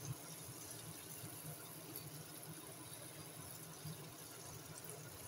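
Gulgule, small balls of jaggery and wheat-flour batter, deep-frying in hot oil in a kadhai, with a steady faint sizzle.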